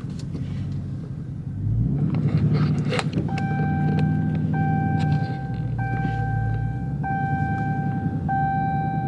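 Car engine running, its rumble rising about two seconds in, while the car's warning chime sounds five times in a steady, evenly spaced series of tones.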